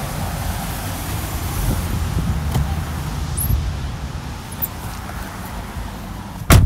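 Outdoor traffic rumble with wind buffeting the handheld phone's microphone, steady and fairly loud. A single sharp knock near the end.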